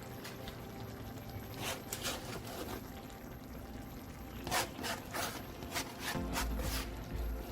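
Soft background music with steady held tones, overlaid by a few light clicks and taps, with a low rumble coming in near the end.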